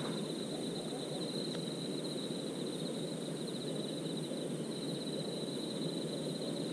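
Night insects trilling steadily at one high pitch, a fast even pulse, over a steady low hiss.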